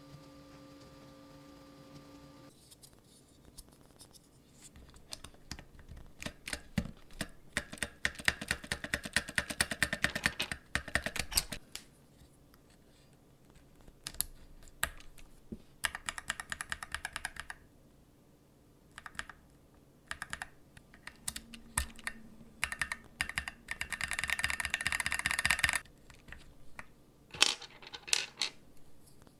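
Mechanical keyboard parts clicking and rattling: sharp plastic clicks in three fast runs of a few seconds each, with scattered single clicks between them.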